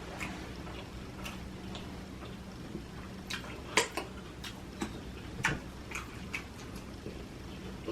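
Close-miked eating sounds: irregular wet clicks of lip smacking and chewing, the loudest about four seconds in, over a faint low steady hum.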